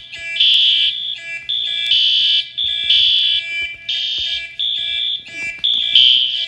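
Fire alarm sounding a high-pitched electronic tone in repeated pulses of about half a second.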